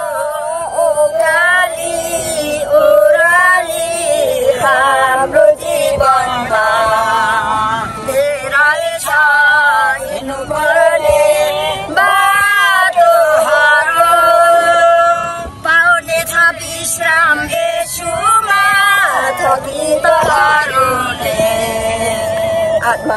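A song with singing voice over music, the melody sliding and wavering in pitch.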